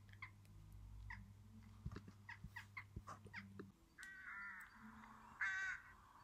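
Faint jackdaw calls, a quick series of short, sharp notes. About four seconds in, these give way to rook calls: two longer, harsh caws.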